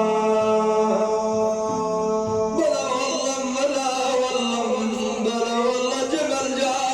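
Middle Eastern music with a man singing in a chanting style. A long note is held steadily, then about two and a half seconds in a fuller passage begins with a moving vocal line.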